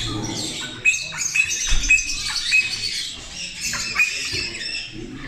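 Many caged birds chirping and squawking together, a dense mix of short, sharp high calls.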